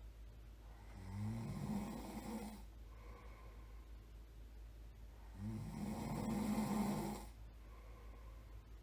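A person snoring: two snores, each about two seconds long and about four seconds apart, with a low rattling tone, and a third beginning near the end.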